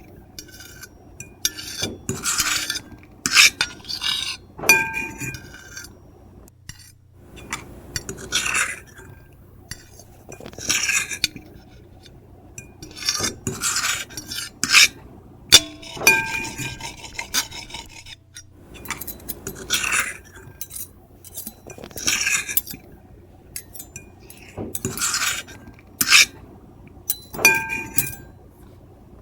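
Metal fork and knife scraping across a ceramic plate in repeated strokes, about one every one to two seconds, some strokes with a brief high squeal, mixed with light clinks of cutlery on the plate.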